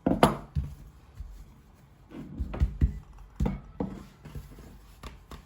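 Dough being pressed and shaped into a square on a kitchen work surface: a few soft knocks and thumps, the sharpest just after the start and two pairs near the middle.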